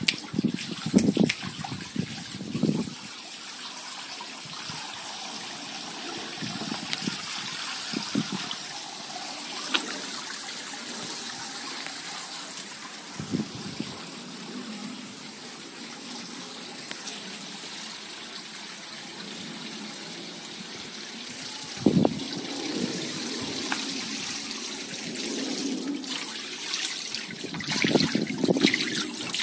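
Water splashing steadily from a spout into a garden fish pond, a constant running hiss. Several low thumps break through it, loudest near the start and near the end.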